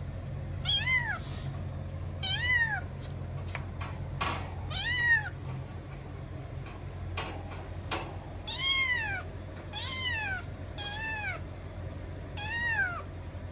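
Kittens meowing: short, high, thin calls that rise and then fall in pitch, repeated every second or two over a steady low hum.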